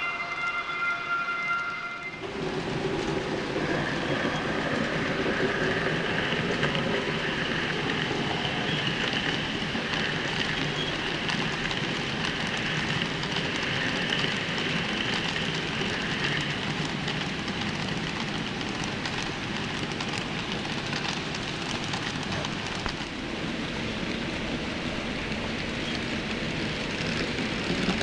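N-scale model trains running on a layout: the steady whir of small electric locomotive motors and the rattle of wheels on the track. A held, horn-like pitched tone cuts off abruptly about two seconds in.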